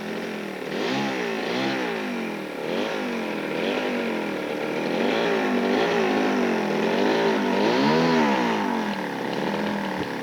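Super Tiger ST 6000 twin-cylinder 60 cc glow engine of a quarter-scale RC Hawker Hurricane, revved up and down repeatedly as the model taxis, its pitch rising and falling about once a second.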